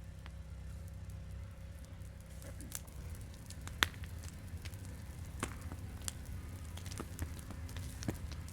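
Wood fire crackling: scattered sharp pops that come more often from about a third of the way in, over a low steady rumble.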